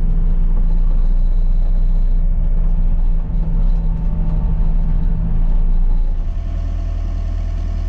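Heavy vehicle engine running steadily, then settling to a lower, even idle about six seconds in.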